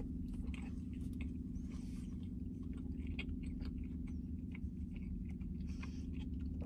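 A man chewing a mouthful of cheeseburger, many small soft clicks of chewing over a steady low hum.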